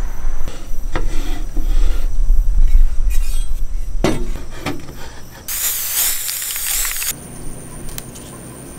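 Steel angle bracket and plastic grinder blade guard being handled: knocks, clinks and rubbing over a low rumble, with a sharp knock about four seconds in. A dense hiss follows for about a second and a half.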